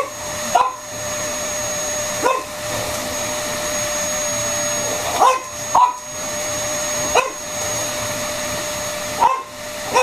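Vacuum cleaner running steadily with a constant whine, while a French Bulldog gives about six short barks at it. The barks are play barks.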